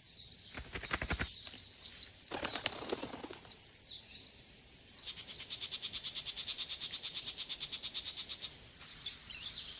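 Small songbirds calling: short, high chirps, then a rapid trill of about ten notes a second lasting nearly four seconds, with a few more chirps near the end.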